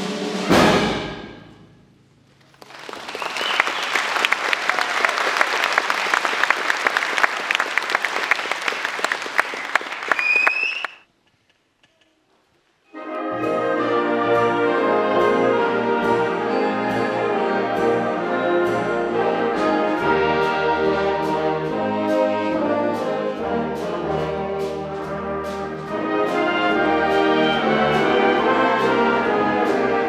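Concert band ends a piece on a loud final chord that dies away, followed by about eight seconds of audience applause with a whistle or two near its end. After a brief silence the band starts a new piece: brass and woodwinds playing over a steady beat of light percussion strikes.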